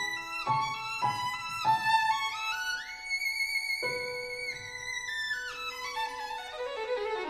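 Background music: a violin melody with sliding notes and vibrato, including one long held note in the middle.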